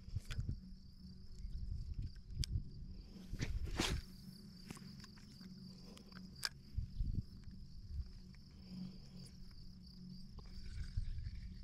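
Insects keep up a steady, high-pitched chorus outdoors, over a low rumble of handling or wind noise. A few short knocks and clicks sound through it, the loudest about four seconds in.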